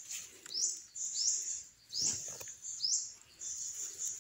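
A high-pitched animal call repeated about every three-quarters of a second, each chirp sweeping sharply up and then holding. Dry leaf litter rustles and crunches underfoot about two seconds in.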